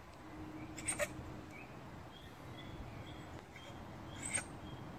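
Badger giving short, high squeaks, a quick double squeak about a second in and another near the end.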